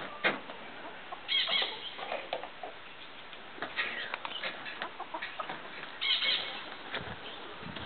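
Domestic hens clucking, with two louder squawking calls, one about a second and a half in and one near six seconds, over scattered short knocks and rustling.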